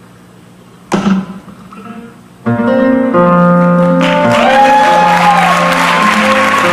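Nylon-string acoustic guitar: a single sharp stroke about a second in, then a steady picked pattern from about two and a half seconds in. From about four seconds an audience's applause rises beneath the guitar.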